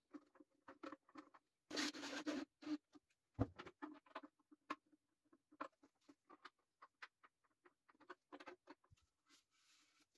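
Faint clicks and scratches of a small screwdriver turning M3 screws into 3D-printed plastic and of the plastic part being handled, with a louder scrape about two seconds in and a single knock a little later. Near the end, a soft rubbing of a cloth on the plastic.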